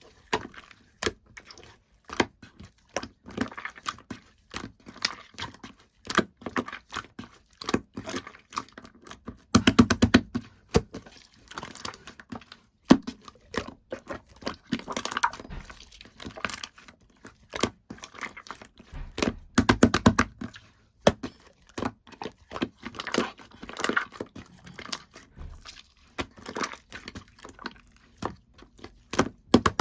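Two-layer slime being squished and worked by hand: a rapid string of sticky clicks and small pops, with two denser, louder runs of popping about ten and twenty seconds in.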